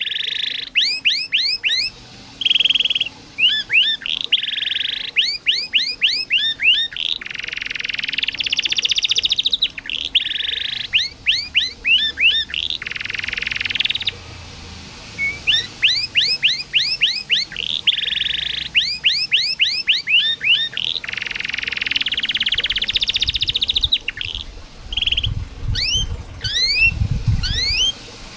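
Domestic canary singing: runs of quick rising chirps, about five a second, alternating with buzzing rolled trills held for one to two seconds. A few low thumps near the end.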